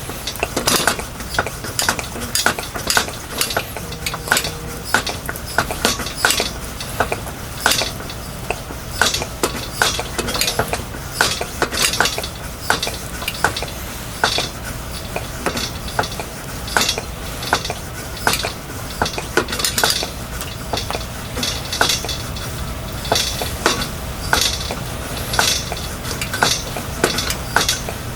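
Metal utensil clinking and scraping against cookware in an irregular run of sharp clicks, with a faint sizzle behind it.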